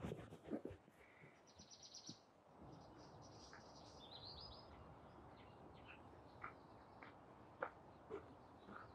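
Faint birdsong: small birds chirping and giving short trills over a low hush, with a few soft knocks in the first second.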